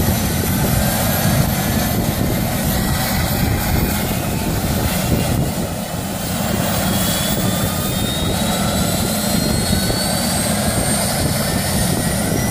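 Helicopter running on the ground with its rotor turning: a steady, loud rotor and engine noise with a thin whine that slowly rises in pitch.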